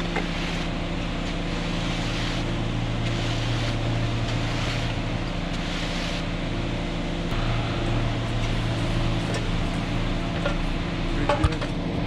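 An engine running steadily at a constant speed, with a single sharp knock near the end.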